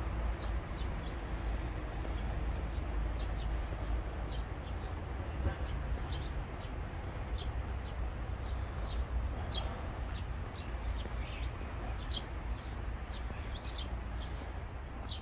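Small birds chirping: many short, high calls at uneven intervals, over a steady low rumble.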